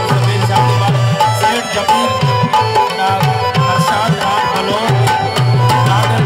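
South Asian folk music led by tabla: a steady hand-drum rhythm whose bass strokes bend in pitch, under a melody instrument playing short held notes.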